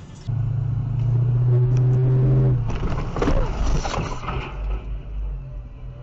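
Road vehicle sound heard from inside a moving car: a loud, low, steady drone starts abruptly and holds for about two seconds, then gives way to a rough, uneven stretch of noise, and near the end it settles to a quieter steady hum.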